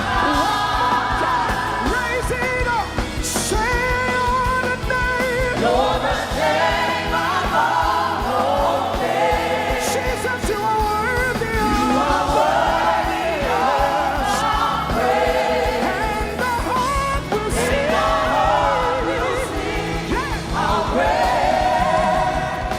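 Live gospel worship music: voices singing over instrumental backing, with the sung lines rising and falling and no spoken words.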